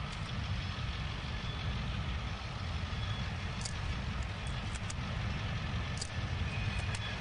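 Tank wagons of a freight oil train rolling by: a steady low rumble, with a few short sharp clicks from the wheels from about halfway through.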